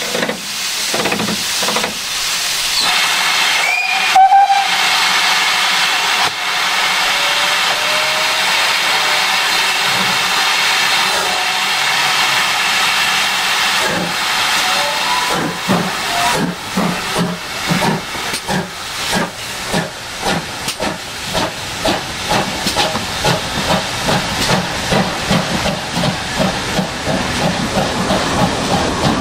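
GWR Manor-class 4-6-0 steam locomotive starting away with a train: a steady hiss of steam, a short whistle about four seconds in, then exhaust beats from about halfway that quicken as it gathers speed.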